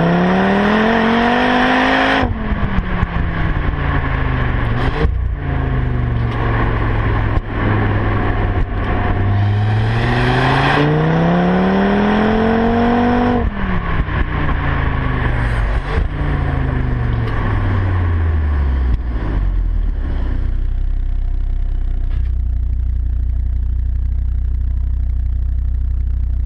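Stock Audi RS3's turbocharged 2.5 TFSI five-cylinder engine and exhaust under full-throttle acceleration. The engine note rises to a peak about two seconds in, then falls away as the throttle is lifted. A second pull climbs again from about ten to thirteen seconds, then winds down with a few sharp pops, and the engine settles into steady low running near the end.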